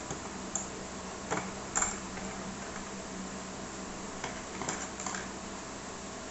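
A few short clicks and rustles as stitched cloth is drawn out from under the presser foot of a Singer M1005 electric sewing machine, over a steady low hum.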